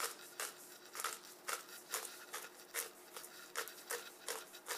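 Handheld spice grinder of Italian seasoning being twisted back and forth, its grinding head clicking in an irregular series of short, sharp clicks, about three or four a second.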